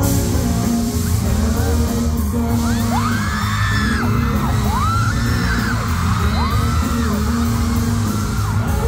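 Live pop song played loud through a concert sound system, with a heavy low beat and singing. From about three seconds in, audience members scream over it in repeated high rising-and-falling shrieks.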